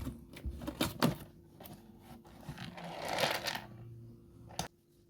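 Lego pieces and packaging being handled: a few sharp plastic clicks and a rustle about three seconds in, cutting off suddenly near the end.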